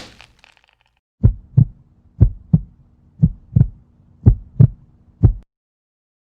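Heartbeat sound effect: deep double thumps, lub-dub, four pairs about a second apart and then one more thump, starting about a second in. It opens with the fading tail of a loud hit.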